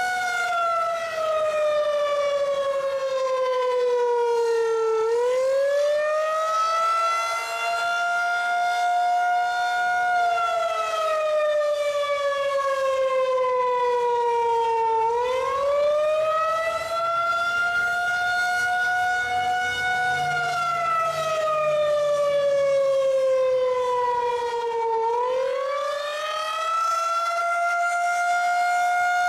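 Federal Signal 2001-130 electromechanical outdoor warning siren sounding the attack signal. Its single tone slowly falls and rises in a wail, one full cycle about every ten seconds.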